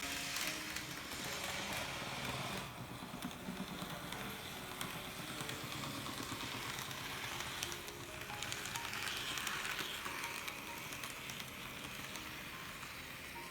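A small N-gauge model-train motor (TOMIX M-9) running with a crackling, sizzling buzz that dips in level twice and comes back, over soft background music.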